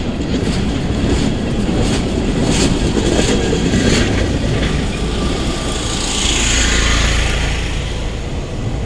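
Railroad cars rolling past at close range, their steel wheels rumbling steadily on the rails, with a run of clicks as wheels cross rail joints over the first few seconds. A hiss swells and fades about six to seven seconds in.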